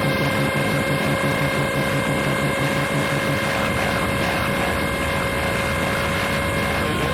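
Harsh noise music: a dense, churning wall of distorted noise with several steady electronic tones held over it, the tones shifting near the end.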